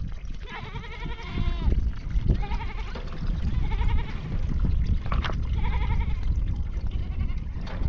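Goats or sheep of a flock bleating, several quavering calls one after another, some overlapping, over a steady low rumble.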